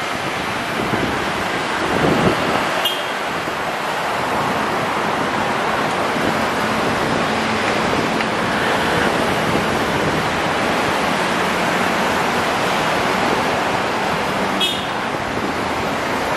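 Steady road traffic noise mixed with wind on the microphone. Two short high-pitched toots come about twelve seconds apart, one about three seconds in and one near the end.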